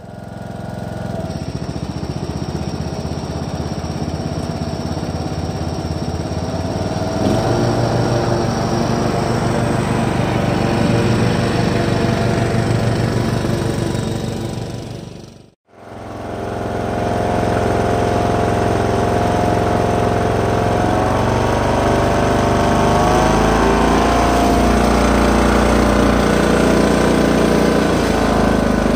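Husqvarna Rider 970 ride-on mower's engine running steadily as it mows, growing louder about a quarter of the way in as it comes closer. The sound drops out briefly about halfway, then the engine runs on with its pitch shifting slightly.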